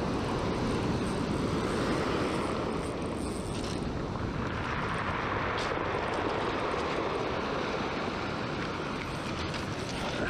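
Ocean surf breaking and washing up a pebble beach, with wind on the microphone; a wave washes in more loudly near the middle.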